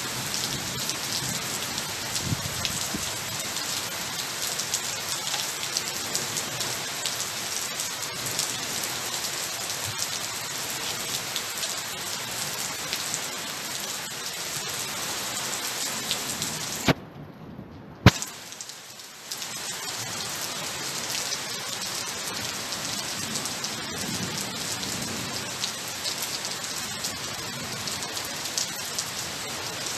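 Steady heavy tropical downpour, a continuous hiss of rain falling on the lake and the surrounding leaves. About two-thirds of the way through, a sharp click cuts the sound out for about a second, and a second click brings the rain back.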